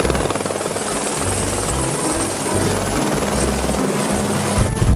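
Helicopter rotor chop: a fast, even beating of the blades that stops near the end.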